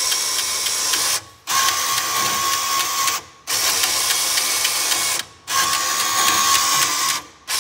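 Motorised coin hopper of a Standard Change-Makers bill changer running in four bursts of about two seconds, each broken by a brief stop, with a thin steady whine in some runs. It is trying to pay out, but the change maker is not working properly.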